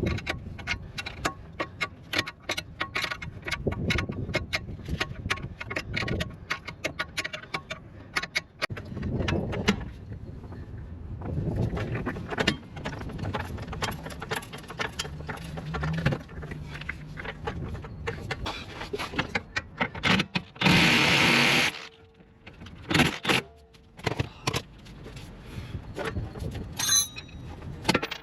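Workshop tool noise on a car under repair: many quick metallic clicks and knocks, with a loud hiss of air lasting about a second two-thirds of the way in.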